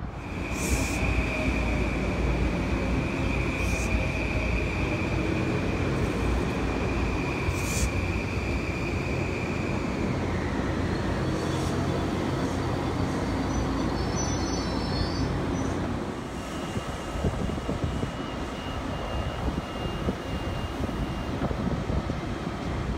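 Metro-North electric commuter train pulling in along the platform and slowing to a stop, with a steady rumble. A steady high-pitched squeal lasts for about the first ten seconds, then slips slightly lower and fades. A fainter high whine follows later.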